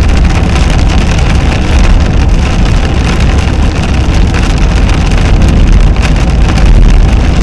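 Car driving at speed on a wet road, heard from inside the cabin: a steady low rumble of tyres and engine under an even hiss of tyre spray.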